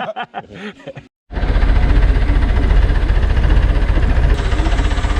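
After a brief cut to silence about a second in, an engine runs steadily and loudly close by, with a deep rumble.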